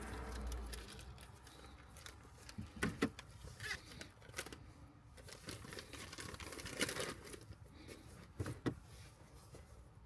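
Hands working a shift boot and its plastic retainer: scattered clicks, rustling and crinkling, with a few sharper clicks spread through it.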